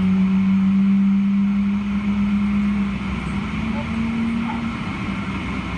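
Steady drone inside the cabin of a Boeing 777-300ER on the ground, a strong low hum at one pitch with a second slightly higher hum joining about three seconds in, and faint voices.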